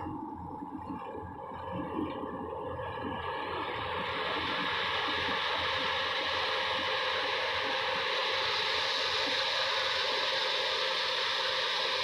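Kubota combine harvester running as it cuts and threshes rice, a steady mechanical rush that grows fuller and hissier about four seconds in.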